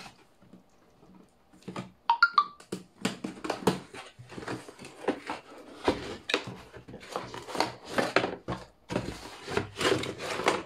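Tightly wrapped parcel packaging being ripped open by hand. After a quiet start, a rapid series of tearing, crinkling and knocking noises begins about two seconds in, with a brief squeak near its start.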